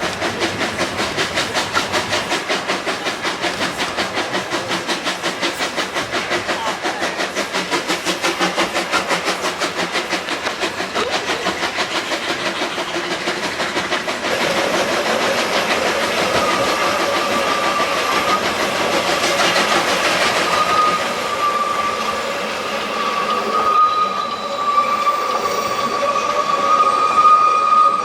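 Narrow-gauge steam train on the move, its locomotive's exhaust beating in a quick even rhythm of about four beats a second. From a little past halfway a long, steady high-pitched squeal runs on over the train's noise.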